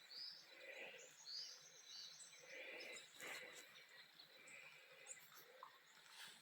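Faint morning birdsong: several birds giving short chirps and whistled calls, some sliding up or down in pitch, with a brief soft knock about halfway through.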